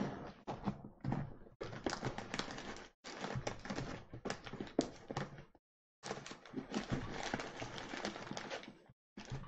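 Zipper on a leather toiletry bag being worked open in three stretches of a few seconds each: a rapid rasp of small clicks, mixed with the creak and rub of the leather being handled.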